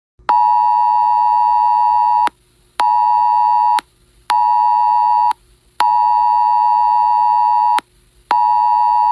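A phone's Wireless Emergency Alert attention signal for a tornado warning: a loud two-tone tone sounding in a pattern of one long pulse and two short ones, played twice over.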